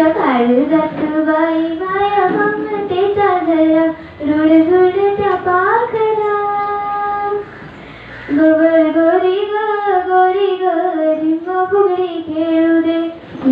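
A girl singing a Marathi folk song solo and unaccompanied, in long, held, ornamented phrases, with a brief pause for breath about halfway through.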